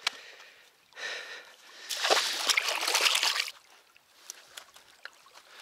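Water splashing at the water's edge for about a second and a half, starting about two seconds in.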